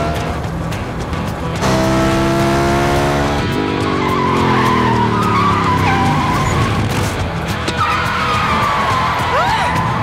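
Motorcycle engine revving hard, its note climbing for a couple of seconds and then falling away. From about four seconds in, tyres squeal in a long wavering skid, over film score music.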